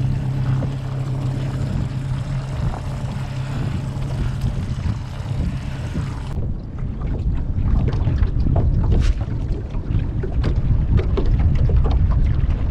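Jon boat's outboard motor running steadily while the boat trawls. About six seconds in the sound changes abruptly to a low rumble of wind and water, with many irregular knocks and clatter.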